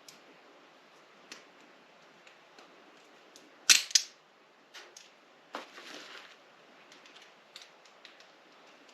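Scattered sharp clicks and knocks of TV stand parts and bolts being handled during assembly. The loudest are a pair of clacks about four seconds in, followed shortly after by a brief scrape.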